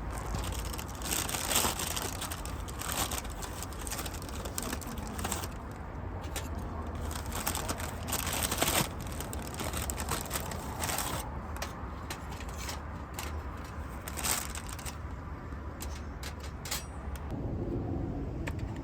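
Irregular crinkling and rustling of plastic being handled, over a steady low hum from what was switched on to warm the car.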